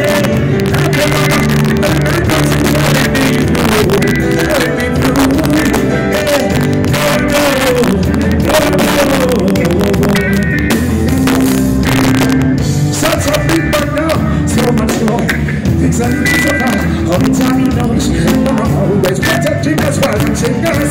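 Live reggae band playing loud with a male vocalist singing over it through the PA, heard close to the stage.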